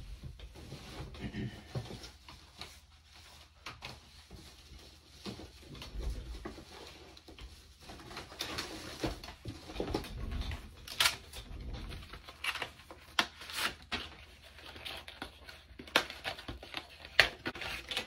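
Scattered clicks, taps and light rustling of things being handled while a replacement iPad screen is fetched, with a few dull low thumps. The clicks come thicker in the second half.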